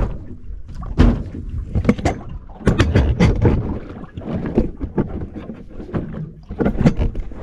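Camera handling noise on a small boat: a string of irregular knocks, bumps and rustles as the camera is picked up and repositioned, the heaviest knocks about a second in, around the middle and near the end.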